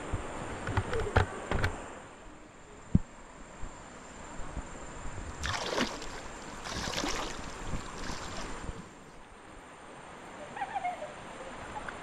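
River water splashing and sloshing around a tube floating down a river rapid, with two loud splashes about halfway through. A few sharp knocks come in the first three seconds.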